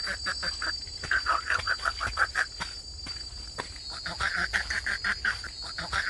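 Forest soundscape: a steady high-pitched insect drone under runs of rapid pulsing animal calls, about five or six pulses a second, that start and stop several times.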